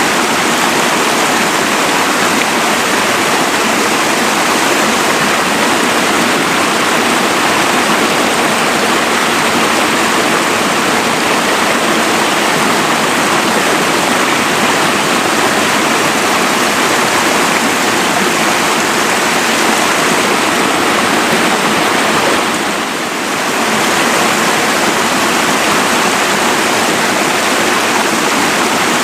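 Mountain waterfall: water falling and splashing in a steady, loud rush, briefly dipping in level about 23 seconds in.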